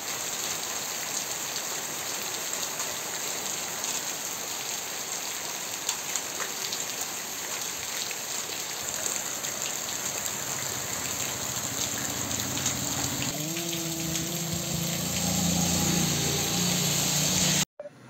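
Heavy nor'wester rain pouring onto a paved road, a steady hiss. In the second half a motor vehicle approaches through the rain with a rising engine hum. The sound cuts off abruptly just before the end.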